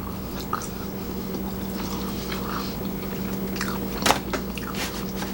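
A person biting and chewing food, with small crunches and a sharp click about four seconds in, over a steady low hum.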